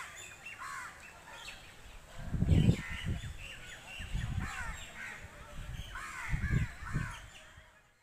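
Evening chorus of many birds in a large peepal tree: crows cawing among dense chirping and trilling of smaller birds. A few low rumbles come and go, the loudest about two and a half seconds in.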